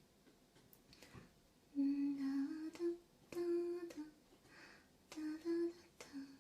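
A woman humming a melody with her mouth closed, in two phrases of held notes: one starting about two seconds in, another near the end.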